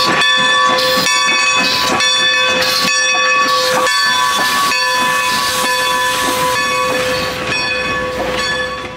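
Steam train arriving: hissing steam under a steady, shrill sound of several tones held together, with irregular puffs, fading near the end.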